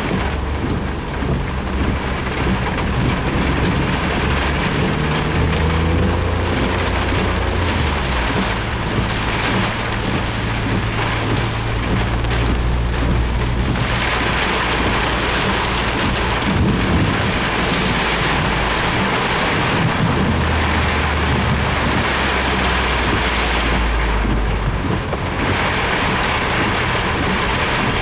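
Heavy downpour drumming steadily on a Suzuki Jimny's roof and windscreen, heard from inside the car. A low rumble runs underneath and swells several times.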